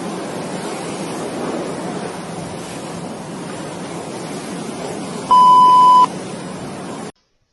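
Steady hiss with a single loud, pure electronic beep lasting under a second, about five seconds in.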